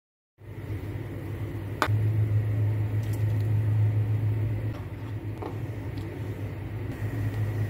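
Steady low mechanical hum, louder in the middle, with a few light taps and plops as sliced onions and ginger are dropped into a pot of hot water.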